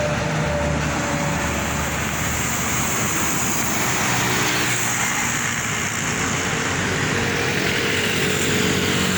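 Steady road-vehicle noise: a continuous rush of traffic with a low engine hum underneath, unchanging throughout.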